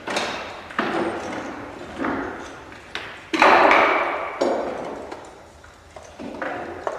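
Hammer blows on a wooden boat hull under construction: a string of sharp knocks at irregular intervals, roughly one a second, each ringing briefly. The loudest blow lands a little past three seconds in.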